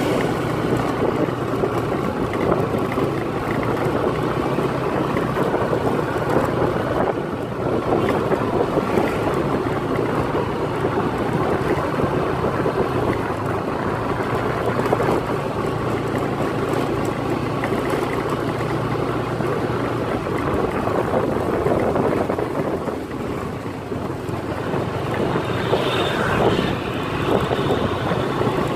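Steady vehicle engine hum with wind rushing over the microphone.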